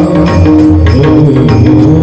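Devotional bhajan music: a steady held drone with a wavering melodic line over it, and drum and percussion strokes at a regular beat.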